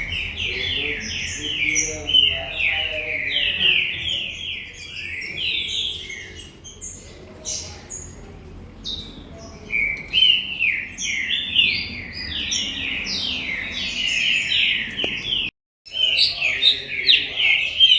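Male green-winged saltator (trinca-ferro) singing: phrases of quick, slurred whistled notes with a pause of a few seconds in the middle.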